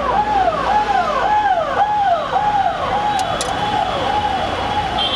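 Siren yelping in a quick repeated rise-and-fall, about two cycles a second, growing fainter after the middle. Two sharp clicks sound a little past three seconds in.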